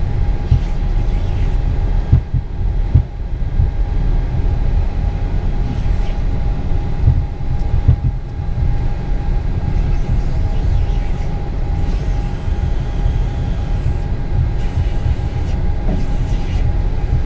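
Cockpit noise of a Vickers VC10 rolling along a runway: a steady low rumble from its four Rolls-Royce Conway engines and the rolling airframe, with a steady whine over it and a few brief knocks.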